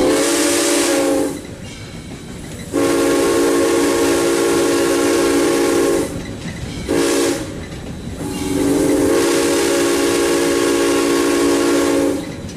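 Steam whistle of Southern Railway 2-8-0 locomotive No. 630, heard from inside the cab. It blows four steady blasts, long, long, short, long, the standard grade-crossing signal. Between blasts the running locomotive rumbles on.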